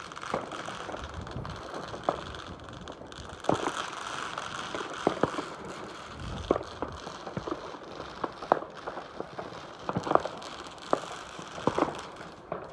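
Distant fireworks going off across town: scattered, irregular bangs and pops, some louder than others, over a steady background hiss.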